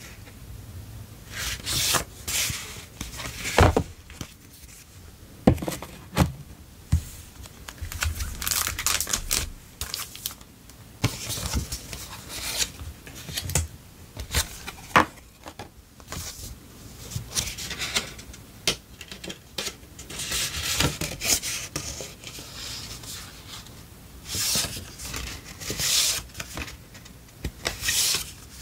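Paper sticker sheets and clear plastic sleeves being handled and shuffled by hand: irregular rustling and crinkling, with a few sharp taps of paper edges or fingernails.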